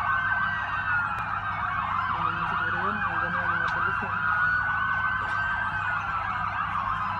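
Several emergency-vehicle sirens wailing at once, their rising and falling tones overlapping continuously, over a low steady hum.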